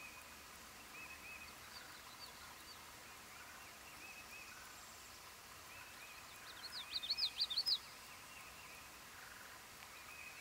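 A Common Yellowthroat sings one loud, quick phrase of sharp repeated notes about six seconds in. Softer, repeated chirps from other birds go on throughout.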